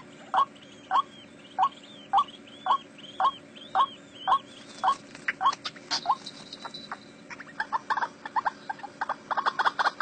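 White-breasted waterhen (ruak-ruak) calling: a run of short, evenly repeated notes about two a second. Near the end the calls come much faster and overlap into a chatter. A sharp click sounds about six seconds in.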